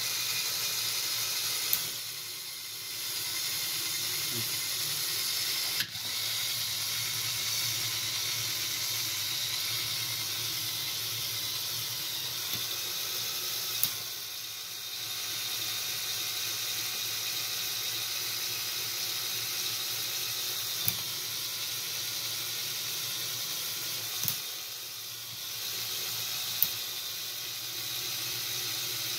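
LEGO Power Functions XL motor running a Technic gearbox, giving a steady whir of the motor and plastic gears. Several sharp clicks sound through it, and the whir dips briefly three times.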